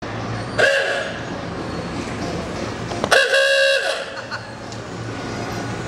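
Horn of a small antique-style open car tooting twice: a short blast, then a longer one about three seconds in.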